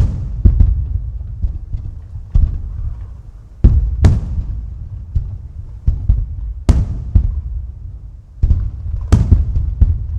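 Aerial fireworks shells bursting in a rapid, irregular series of booms, each trailing off in a rolling echo; the biggest bursts come about four, six and a half, and nine seconds in.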